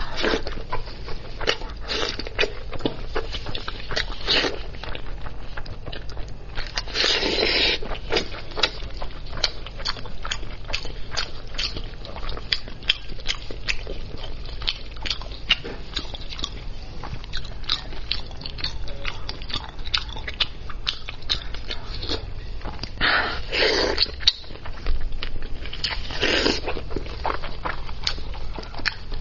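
Close-miked eating of spicy braised lamb's head: biting, chewing and wet mouth clicks. Three louder noisy stretches of about a second each stand out, near a quarter of the way in and twice towards the end.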